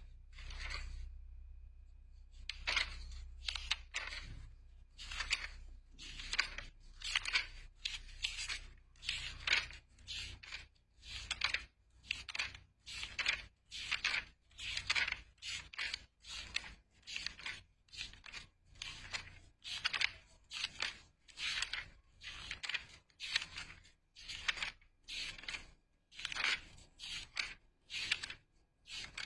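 Paper being handled: repeated dry rustling, scraping strokes a little more than once a second, often in quick pairs, starting a couple of seconds in.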